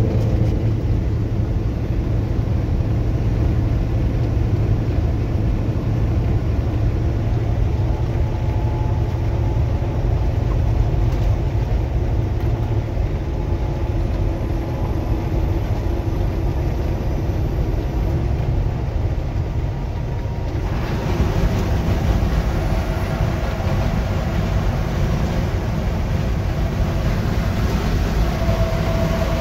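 Steady road and engine noise heard from inside a moving vehicle: a continuous low rumble that turns hissier about twenty seconds in.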